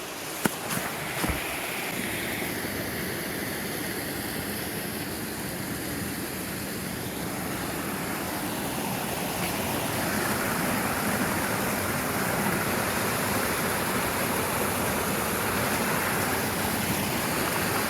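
Mountain creek water rushing steadily over rocks, growing louder about ten seconds in, with a few sharp knocks in the first second or so.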